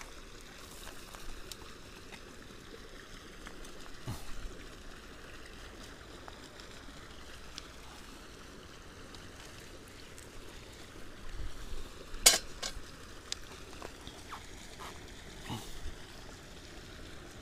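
Faint handling of fishing gear over a steady low hiss: a few soft knocks and one sharp click about twelve seconds in, with a couple of lighter clicks near the end.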